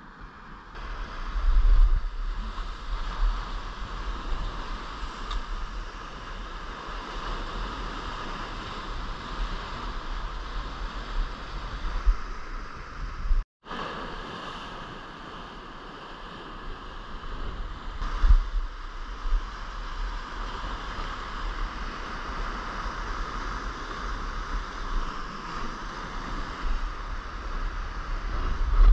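Ocean surf washing against a rocky shoreline, with wind buffeting the microphone in low gusts. The sound drops out for a moment about halfway through.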